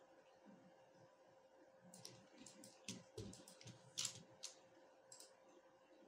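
Short, sharp computer mouse clicks, a quick run of them from about two seconds in to about five seconds, the loudest near four seconds, over a faint steady hum.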